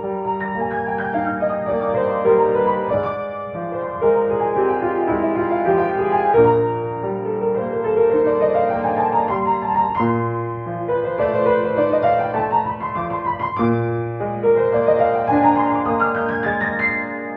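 Solo piano playing a flowing melody over sustained chords, with repeated sweeping runs of notes that rise and fall.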